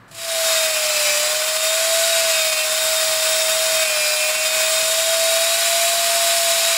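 Electric power tool running steadily as it cuts a groove into wood, a constant whine over a dense high hiss.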